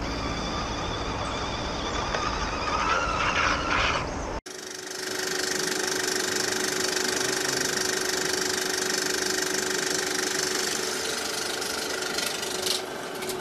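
A 1:10 scale RC truck's electric motor whines, rising and falling in pitch, as it wades through a stream. A sudden cut brings a steady film-projector whirr: hiss with a steady hum, lasting about nine seconds, with a few clicks near the end.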